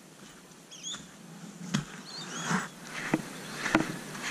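Footsteps crunching on sand and dry bush ground as a man walks, growing louder from about a second in, with a few short high bird chirps.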